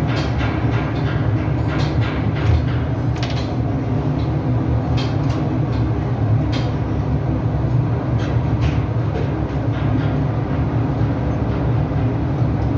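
Ship engine-room machinery running with a loud, steady low drone. Scattered light clicks and knocks from metal parts being handled sit on top of it.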